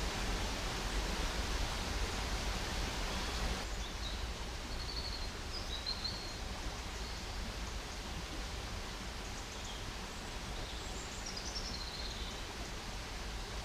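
Outdoor riverside ambience: a steady hiss with a low rumble underneath. Small birds chirp a few times from about four seconds in.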